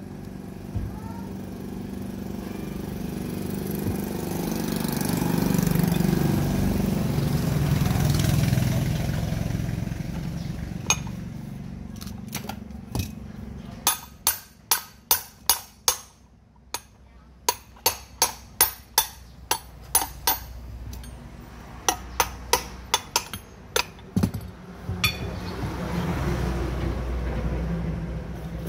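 Sharp metallic taps in quick runs of four or five, about three a second, typical of hammer work on pump parts. They come over a low rumble that swells and fades in the first half and returns near the end.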